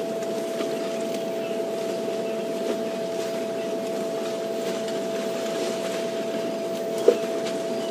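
Steady mechanical hum holding one constant tone, with a single sharp knock about seven seconds in.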